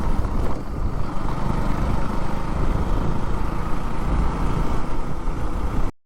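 Riding on a KTM Duke 200 motorcycle: steady wind buffeting on the microphone with engine and road noise underneath. The sound cuts out for a moment near the end.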